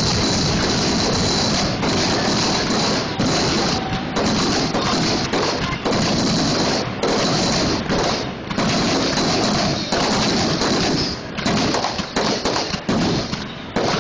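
Fireworks going off in a rapid, near-continuous barrage of bangs and crackling that breaks up into separate sharp reports near the end.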